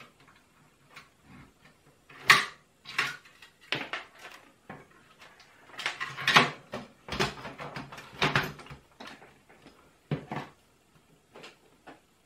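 Irregular plastic clicks and knocks from a Commodore C64c's case and keyboard being handled and shifted on a workbench, busiest in the middle.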